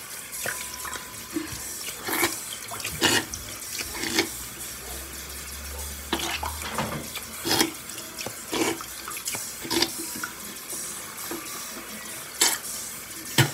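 Bathroom tap running into the sink, with a dozen or so sharp knocks scattered through it, the loudest near the end.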